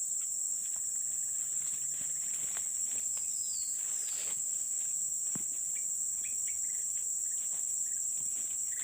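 Steady high-pitched drone of forest insects, even throughout, with a few faint rustles and brief bird chirps under it.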